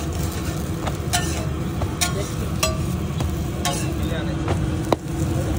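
Metal spatula clinking and scraping on a large flat griddle as kulcha flatbreads are flipped and stacked, with sharp clinks about once a second, the loudest near the end. Underneath is steady sizzling and a low, constant background rumble.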